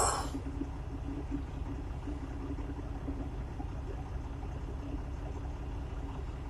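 Steady low rumble of a truck engine heard from inside the cab, with a steady hum running under it. A brief loud noise fades out right at the start.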